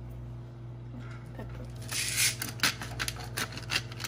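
Seasoning being dispensed from a small handheld container over a baked potato: a quick run of gritty crunches and clicks that starts about halfway through. A steady low hum runs underneath.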